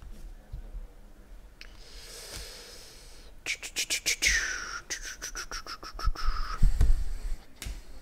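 A stack of trading cards being flipped through and shuffled by hand: a rapid run of crisp card clicks about halfway through, alongside a faint high tone that slides down in pitch and then holds, and a low thump near the end.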